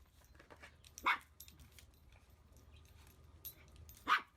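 A chihuahua barks twice, two short, sharp barks about three seconds apart.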